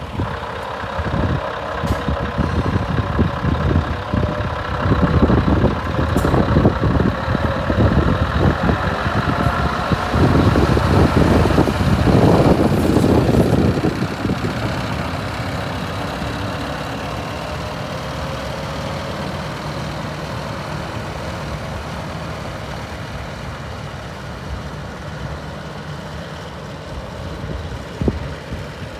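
Scania R560 hooklift truck's V8 diesel engine pulling away and driving past close by, loudest as it passes about halfway through, then fading steadily as the truck moves off into the distance.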